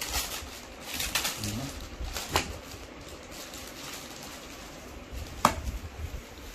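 Cloth helmet bag and cardboard box rustling as the drawstring is untied and the bag worked open, with a sharp click about five and a half seconds in.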